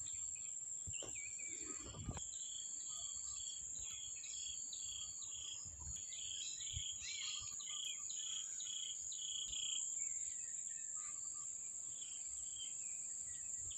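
Steady high-pitched drone of insects. Midway a bird calls a run of short repeated notes over it, and there are a few soft thumps.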